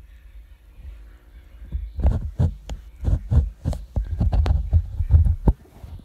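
Handling noise of a camera being moved and repositioned: a low rumble with an irregular run of knocks and bumps on the microphone from about two seconds in, stopping shortly before the end.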